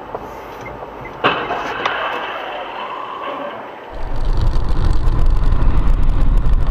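A sudden car collision about a second in: a sharp crash, then a couple of seconds of fading scraping noise. After about four seconds it switches to the loud, steady low rumble of a car driving on a wet road, heard inside the cabin.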